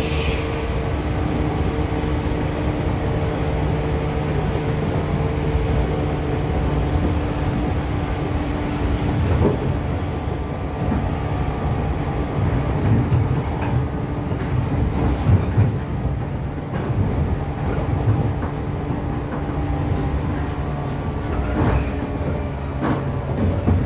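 Interior running sound of a JR 415 series EMU motor car (MoHa 415-520) moving at speed: steady rumble and hum of the wheels, gears and MT54 DC traction motors beneath the floor, with a light whine that fades about seven seconds in. A few clicks and knocks from the wheels on the track are heard through the middle and near the end.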